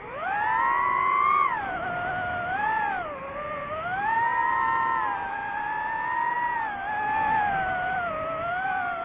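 DJI FPV drone's motors whining. The pitch jumps up sharply at the start, then falls and rises again several times as the motor speed changes.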